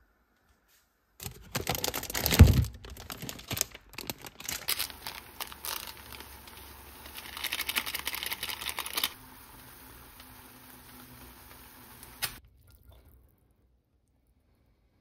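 Plastic instant-noodle packaging crinkling and being torn open, with sharp rips and clicks, loudest about two seconds in and again around eight seconds. A faint steady hum follows and cuts off suddenly about twelve seconds in.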